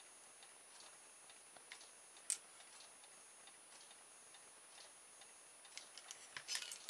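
Near silence with scattered faint clicks from a hot glue gun and a wooden mousetrap being handled. There is one sharper click about two seconds in and a quick run of small clicks and knocks near the end.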